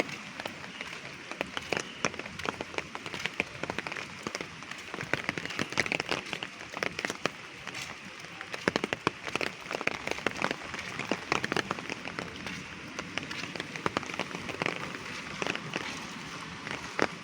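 Light drizzling rain: a steady hiss of falling rain with many sharp, irregular ticks of drops striking a hard surface.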